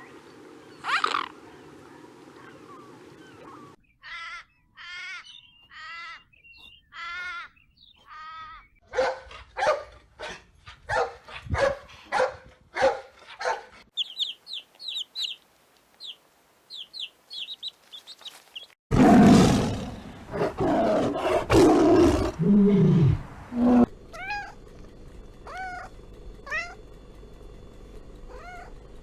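A string of different animal calls cut one after another: repeated pitched calls, then a quick run of high chirps, then a loud, deep roar lasting several seconds, then more pitched calls.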